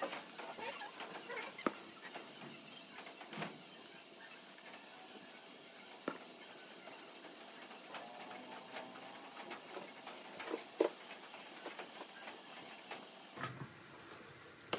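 Light scattered taps and clicks of small cut-out letters being handled and set into a wooden sign on a tabletop.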